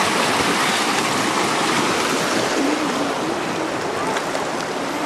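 Rushing creek water running over rocks: a steady, even wash.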